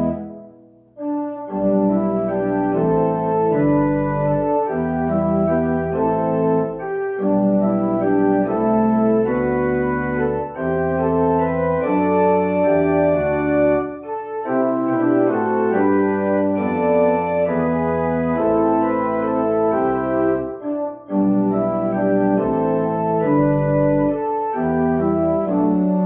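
Organ music playing held chords in slow phrases, with brief breaks between phrases about a second in and again around 7, 14 and 21 seconds in.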